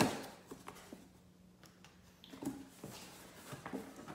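Packing tape being cut and pulled off a cardboard box: a sharp snap at the start, then faint cardboard scrapes and taps.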